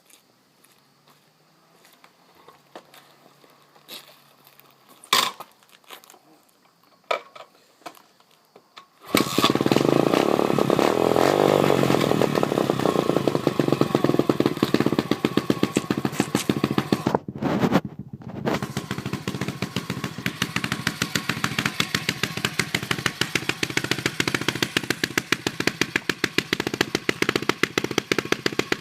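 2007 Kawasaki KLX110 single-cylinder four-stroke engine through an FMF PowerCore 4 exhaust, started up: a few clicks and a knock, then the engine catches about nine seconds in and runs loud with some revving. It breaks off twice very briefly past the halfway point, then runs on with a fast, even exhaust beat.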